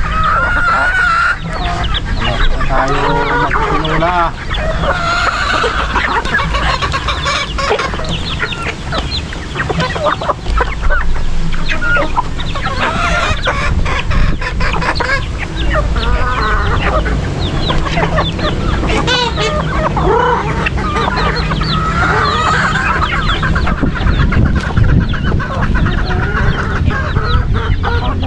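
A flock of chickens clucking and calling continuously as they crowd in to feed, with crowing among the calls.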